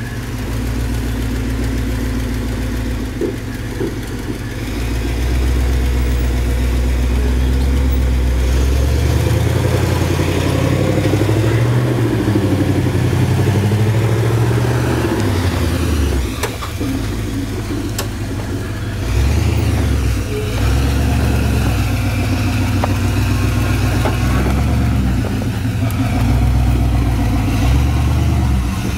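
Jeep rock crawler's engine running at low speed under load, its pitch rising and falling repeatedly as the throttle is worked to crawl over rock ledges. A couple of sharp clicks come around the middle.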